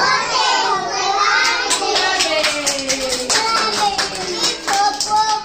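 A group of young children singing together, joined about a second and a half in by a steady beat of hand claps.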